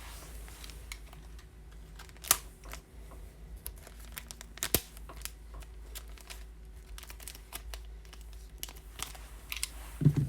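Trading cards being handled and slipped into plastic card holders: crinkling and rustling with scattered light clicks, two sharper clicks about two and five seconds in.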